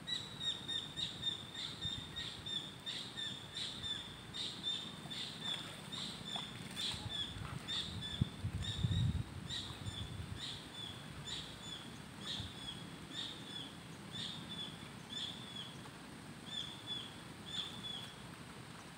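A bird calling a long run of short, high, downward-sliding chirps, about two a second, which stops near the end. A brief low rumble comes about eight seconds in.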